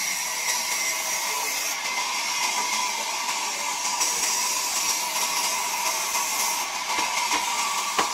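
Sawmill band saw running with a steady high whine. A few short wooden knocks come near the end.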